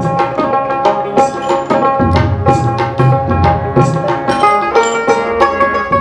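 Background music: a quick, steady hand-drum rhythm under a melody of held notes.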